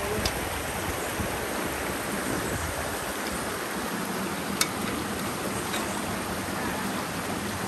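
Small rocky stream running over stones, a steady rush of water. A single sharp click sounds about halfway through.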